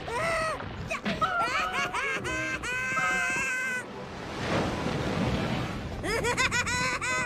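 A cartoon boy's frightened screams and yells while clinging to a flying winged horse, with a rushing whoosh of the take-off in the middle.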